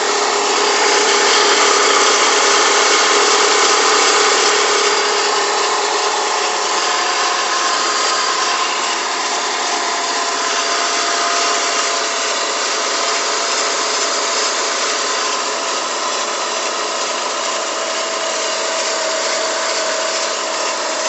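Stratus engine running on a cold start with a steady noise from the timing belt area: a held tone over a constant hiss. The owner hears this noise only on the first start after the car has sat for some hours, and it goes away after about five minutes.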